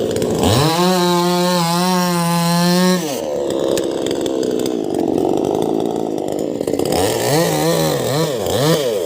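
Senso 16-inch two-stroke chainsaw revving up quickly to a high, steady full-throttle note for a couple of seconds, then dropping back to a lower, rougher running sound. Near the end the throttle is blipped three times in quick succession.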